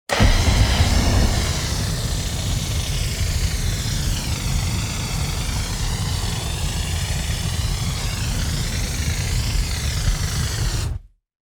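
Large fire roaring steadily, a deep rumble under a hiss, slightly louder in the first second. It starts abruptly and cuts off after about eleven seconds.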